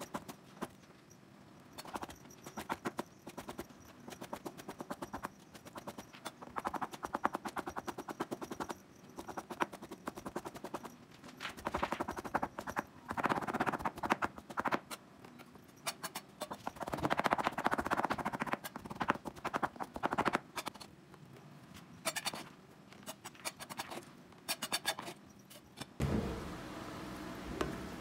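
Kitchen knife chopping rapidly on a cutting board, as in mincing dumpling filling, in fast runs of strikes broken by short pauses. Near the end the chopping stops and a steadier, lower sound takes over.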